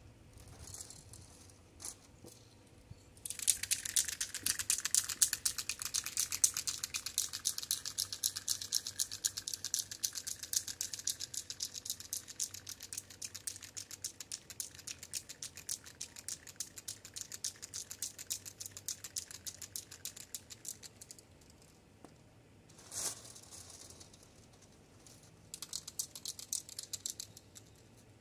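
Aerosol spray paint can being shaken hard, its mixing ball rattling rapidly, for about eighteen seconds. A brief hiss follows, then a second, shorter bout of rattling near the end.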